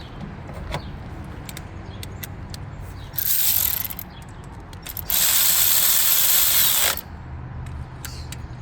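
Ratchet wrench ratcheting as the coil pack hold-down bolts are driven in: a short burst of rapid clicking about three seconds in and a longer run of about two seconds near the middle, with a few light knocks of tools and parts.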